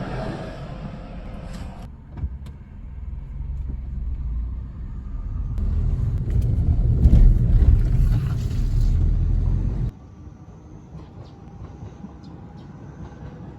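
Low rumble of a vehicle in motion, in several short cut-together shots. It grows louder from about five seconds in, then drops off suddenly near ten seconds to a quieter rumble.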